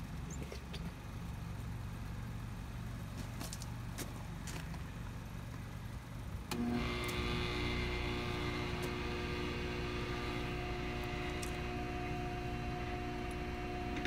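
HPC key code-cutting machine switched on about six and a half seconds in, its motor and cutter then running with a steady whine. Before it starts there is only a low hum and a few light clicks.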